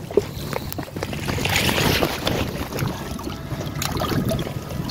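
Wind rumbling on a phone's microphone, with river water washing against rocks at the shore and a few light clicks and knocks from handling.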